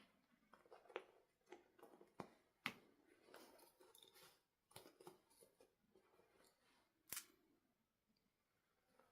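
Faint handling noise from a plastic toy doll and its packaging: scattered sharp clicks, about five of them, with soft rustling in between.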